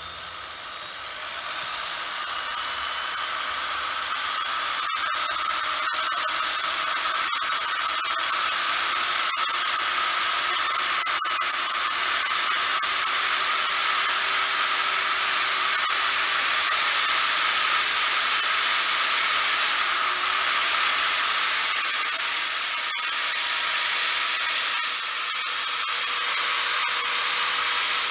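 Corded power tool's motor, run through a plug-in dimmer speed controller, speeding up over the first few seconds with a rising whine. It then runs steadily at high speed with a strong hiss, its pitch dipping briefly once about two-thirds of the way through.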